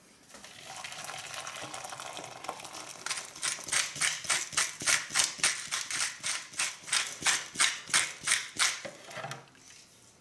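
Water poured onto instant broth powder in a plastic measuring jug. Then a spoon stirs the broth quickly in even strokes, about three a second, scraping and clinking against the jug's sides.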